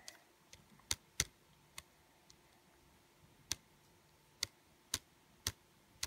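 Computer mouse buttons clicking: about seven short, separate clicks spread unevenly over a few seconds, over faint room tone.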